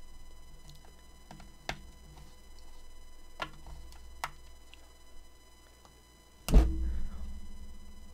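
The plastic case of a Garmin Nuvi 205W GPS being pried apart by fingernails: a few sharp plastic clicks, then one louder knock with handling rustle near the end.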